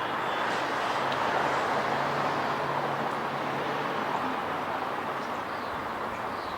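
Steady outdoor background noise, like distant road traffic, with no sudden knocks or tool sounds.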